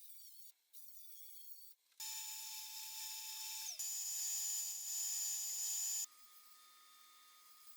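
An electric power tool's motor running with a steady high whine, dipping in pitch for a moment partway through and picking up again, then dropping to a quieter steady hum.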